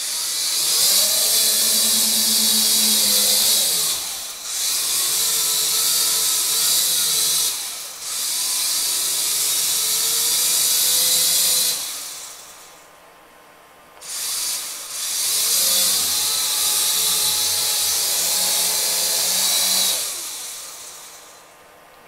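AVATAR YD-711 mini quadcopter's small electric motors and propellers whirring in several stretches of a few seconds, the high whine rising and falling with the throttle, with short pauses between. The craft shuffles across the floor and never properly takes off.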